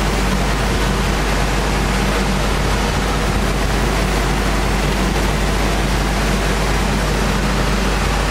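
Wood-core sanding machinery running steadily: an even rushing noise with a low hum underneath.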